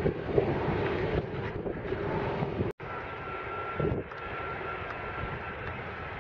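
Jet airliner engines: a twin-jet airliner climbing away after take-off, with a steady engine rumble. About three seconds in the sound cuts abruptly to a quieter twin-jet airliner on approach, its engines carrying a thin steady whine.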